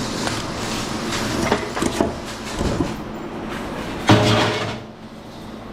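Scrap light-fixture parts being handled and knocked about: a run of separate knocks and clatters, with a louder, briefly ringing clatter about four seconds in.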